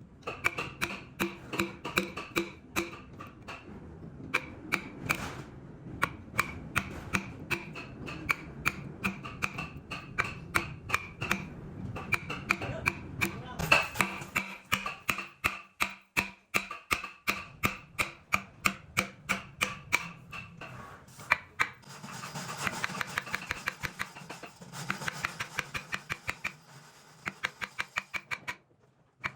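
Hand tools working wood: rapid, evenly repeated strikes, about three to four a second, typical of a mallet driving a chisel while cutting joints. From about two-thirds of the way in, a hissy scraping, like a saw or rasp, mixes with the strikes for several seconds before it stops.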